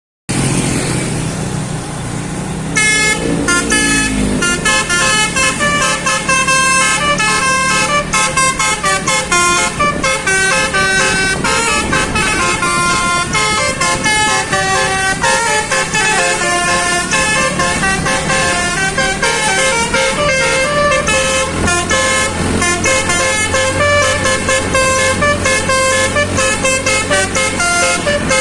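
Telolet basuri multi-tone musical bus horn playing a fast melody of short notes that jump up and down in pitch, over a low engine rumble. The melody starts about three seconds in.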